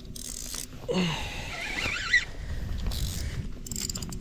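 Shimano Twin Power spinning reel with its drag slipping and clicking as a big pike pulls line against a hard-bent rod. A wavering high squeal runs from about one to two seconds in, and a quick run of clicks comes near the end.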